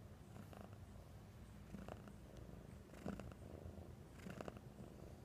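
Domestic cat purring steadily, a low, even rumble, with a few short rustles over it.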